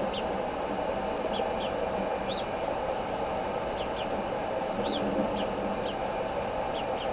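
Bald eagle hatchlings chirping while being fed: about a dozen short, high peeps scattered irregularly, over a steady rushing background noise.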